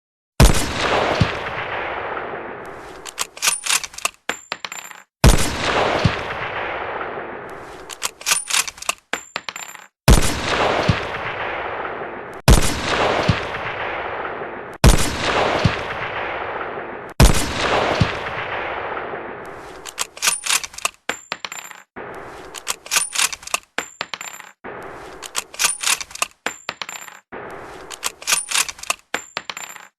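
Shotgun sound effects: six single shots, each with a long echoing tail. Clusters of sharp metallic clicks follow the first two shots, and fill the last third as shells are loaded and ejected.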